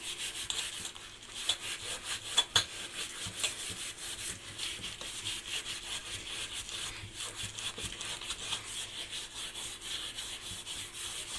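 Steel-wool scourer scrubbing a dirty metal cooking pot in quick back-and-forth strokes, a continuous harsh scraping rasp, with a couple of sharper knocks about two and a half seconds in.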